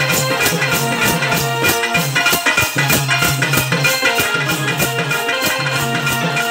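Music with a steady percussion beat: sharp jingling strokes about four a second over sustained melody notes and a bass line.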